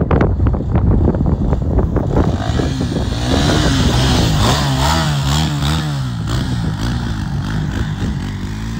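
Kawasaki KLX dirt bike's single-cylinder four-stroke engine running close by, revving up and down several times a few seconds in as the rear wheel throws up dirt.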